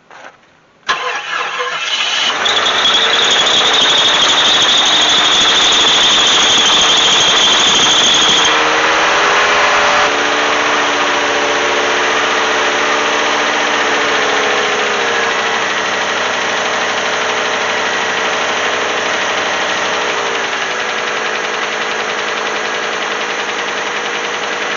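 Jeep Grand Wagoneer's AMC 360 V8, on a newly fitted Motorcraft 2100 carburetor, starts about a second in and runs at a fast idle. A high steady squeal is heard over the first several seconds. The engine speed steps down twice, around halfway and again near the end, as the idle is brought down.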